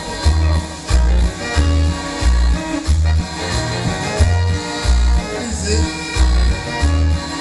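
Loud Latin dance music played over a sonidero sound system, with a heavy bass note about every two-thirds of a second.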